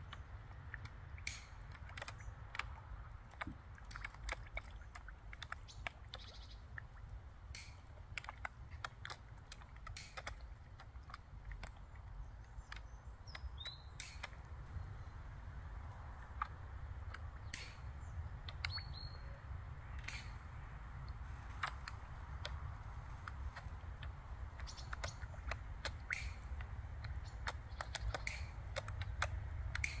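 Pond fish taking floating bread at the surface: irregular small wet pops and smacks as their mouths break the water. Underneath is a steady low rumble, and two short bird chirps come partway through.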